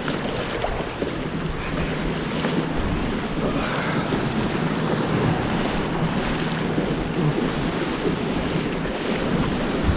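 Small waves washing up a sandy beach and water splashing around wading feet, with wind buffeting the microphone.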